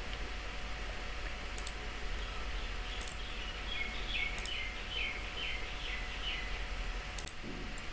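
Quiet room with a steady low electrical hum and a handful of sharp computer-mouse clicks spread through. Midway through there is a run of about eight short, faint, high chirps, evenly spaced.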